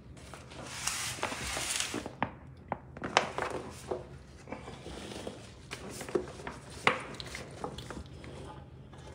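Cooked penne pasta being scooped out of an aluminium foil pan and tipped into a stainless steel mixing bowl. A second or so of rustling near the start, then a run of light, irregular clicks and knocks as the serving spoon and the pasta hit the metal bowl.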